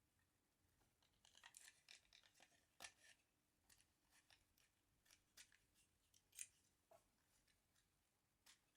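Faint clicks and light scraping of small airsoft pistol parts being handled during a hammer swap, in scattered bursts with one sharper click near the end.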